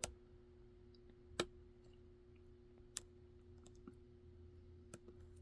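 Lock picking on an EVVA DPI cylinder: sparse sharp metallic clicks as the pick works the pins under tension, four distinct clicks about a second and a half apart with a few fainter ticks between, over a faint steady hum.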